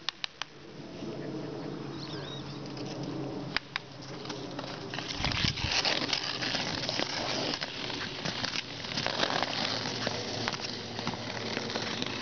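Ice skate blades scraping and hissing across pond ice, louder from about halfway through, with a few sharp clicks of a hockey stick hitting a ball in the first few seconds.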